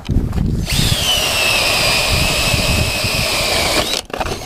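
Ryobi cordless drill turning an ice auger as it bores a hole through the pond ice. The motor starts with a high whine about half a second in, falls a little in pitch, runs steadily, then stops shortly before the end.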